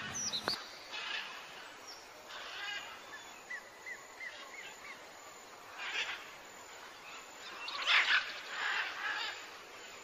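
Small birds chirping and calling: a quick run of short, high chirps about three and a half seconds in, and louder, rougher bursts of calls about six and eight seconds in.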